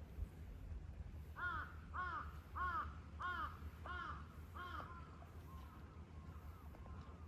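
A crow cawing six times in a quick, even series, the calls coming about every two-thirds of a second and stopping a little past the middle.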